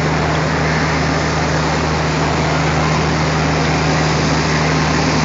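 Indian Railways diesel locomotive engine running steadily as the locomotive moves slowly toward the coach it is to couple to, a constant low drone with a steady hum.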